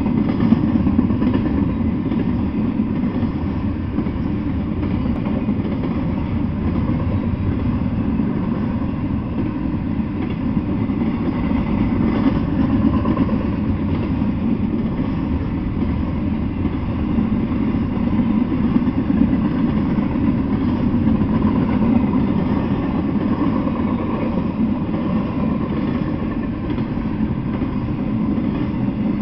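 Double-stack intermodal container freight train rolling past, a steady rumble of its cars' wheels on the rails.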